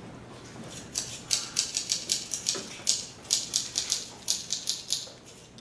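Typewriter key-clack sound effect from a projected video, about five sharp clicks a second in short runs with brief pauses, matching on-screen text being typed out letter by letter.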